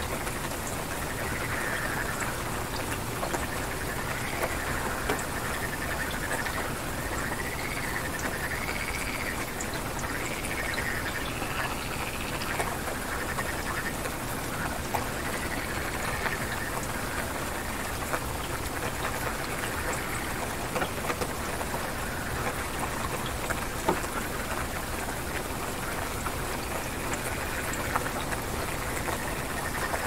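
Frogs calling in steady rain: a string of short rising-and-falling calls, thickest in the first half, over the even hiss of falling rain, with scattered drop ticks.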